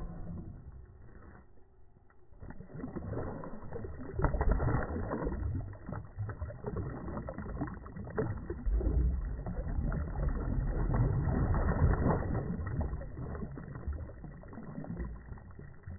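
Water splashing and swirling beside a kayak hull as a released Murray cod kicks free and swims off. It starts about two seconds in, is loudest through the middle and dies away near the end.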